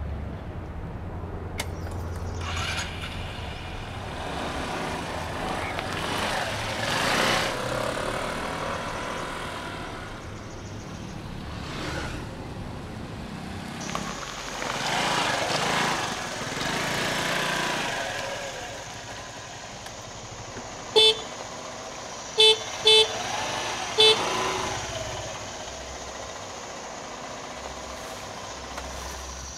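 Motor scooter horn beeping four short times, the middle two close together, over the scooter's engine running as it rides up.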